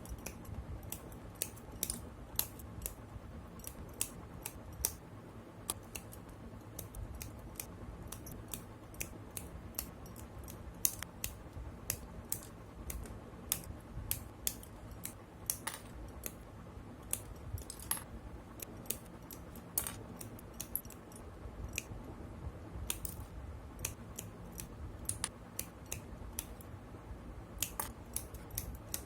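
Plastic Gundam model kit parts being snipped from their runners with hobby cutters: a steady run of sharp, irregular clicks, a few each second, some louder than others.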